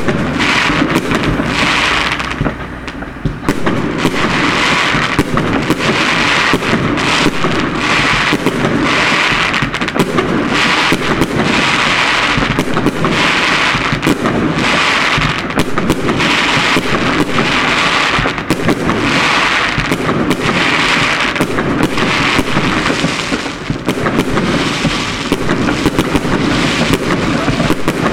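Fireworks going off in quick succession, about one burst a second, with dense crackling between them and a short lull about two to three seconds in.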